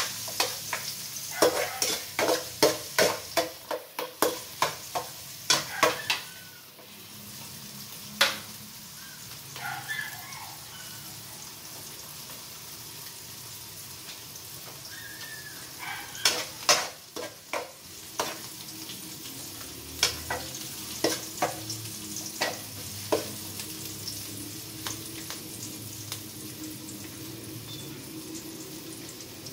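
Chopped onion and garlic sizzling in hot oil in an aluminium pot, with a steady hiss throughout. A spatula knocks and scrapes against the pot in two spells of stirring, one in the first six seconds or so and another about halfway through.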